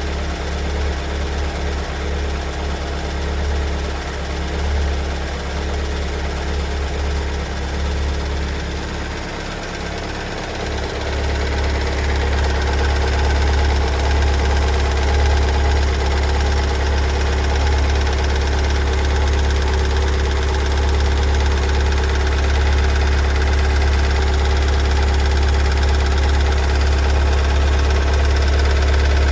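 Kia Sorento 2.2-litre diesel engine running with a loud knocking, which the owner takes for a fault that the car never had before. It gets louder about twelve seconds in.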